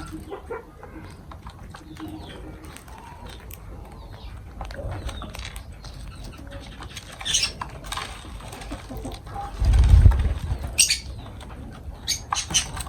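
Lovebirds giving a few short, sharp high-pitched chirps over a low background, with a loud low thump about ten seconds in.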